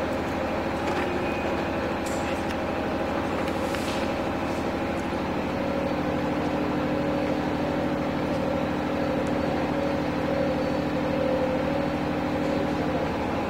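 Steady mechanical hum of a running machine, holding several even tones, with a couple of faint clicks in the first few seconds.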